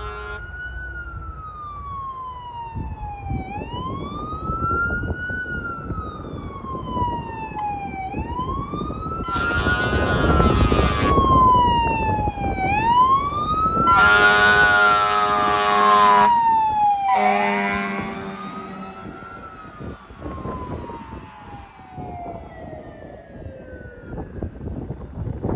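Fire engine siren wailing, rising and falling about every four and a half seconds, with three long air horn blasts in the middle over the rumble of the truck. Near the end the siren tone falls steadily and fades.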